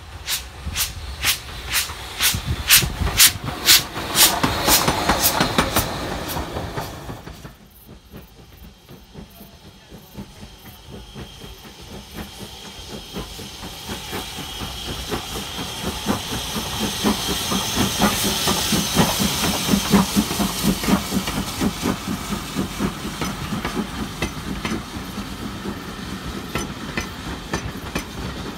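A Swanage Railway steam locomotive working past, its exhaust beats coming about three a second and giving way to hissing. After a sudden drop about seven seconds in, a train's coaches roll past with wheels clicking over the rail joints, growing louder toward the middle and easing slightly near the end.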